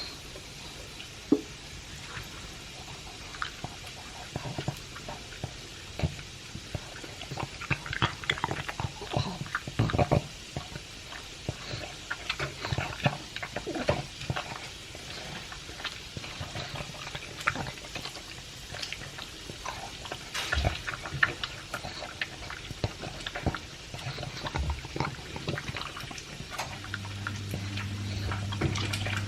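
A pug eating dry kibble mixed with chunks of beef: irregular crunching, chewing and mouth smacking. A steady low hum comes in near the end.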